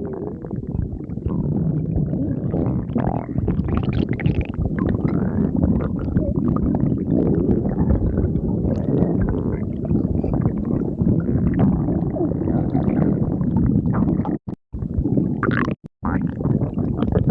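A person's stomach growling loudly and continuously, with two brief drop-outs to silence near the end.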